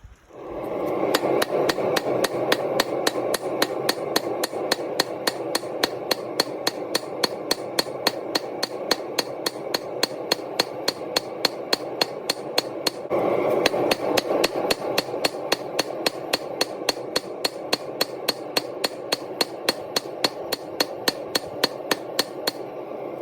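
Hammer striking steel while forging a Damascus blade: a fast, even run of ringing blows, about three or four a second, over a steady rushing noise.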